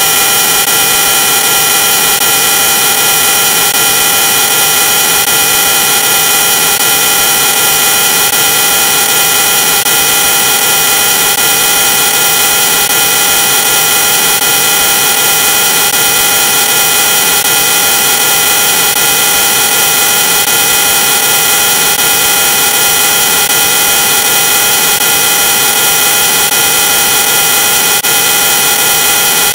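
Loud, harsh, steady electronic drone: dense hiss with several high buzzing pitches held unchanged, the kind of noise left when audio is heavily distorted by video-effect processing.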